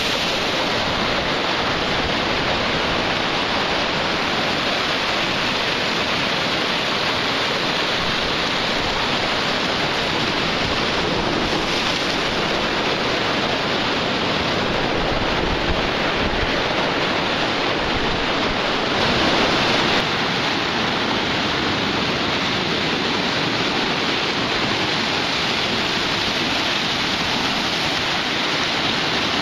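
Surf breaking along a sandy, rocky beach: a steady, even wash of noise.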